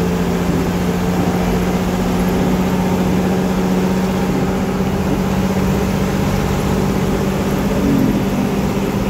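Intercity bus engine running steadily at cruising speed, heard inside the cabin as an even low drone, over a steady hiss of rain and wet road.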